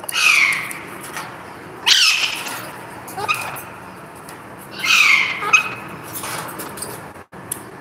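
Alexandrine parakeet giving three loud, harsh calls, each falling in pitch, with a few shorter, softer calls in between.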